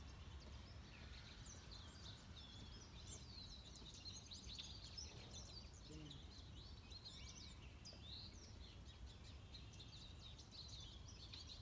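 Faint chirping and trilling of several small birds, many short calls overlapping throughout, over a low steady background rumble.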